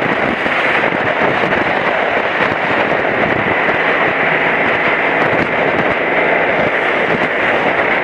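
Onboard sound of a BMW F700GS motorcycle riding at speed: loud, steady wind rush and crackle on the camera microphone, with the engine's low hum faintly underneath.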